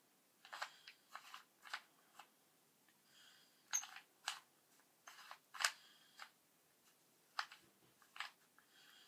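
Rubik's cube being turned by hand: a dozen or so short, sharp plastic clicks at irregular intervals, some in quick pairs, as its layers are twisted.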